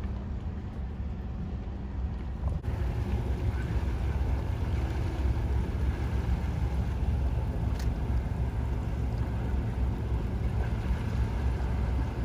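Small launch's motor running as it approaches across calm harbour water, a steady low rumble that gets louder a couple of seconds in, mixed with wind noise on the microphone.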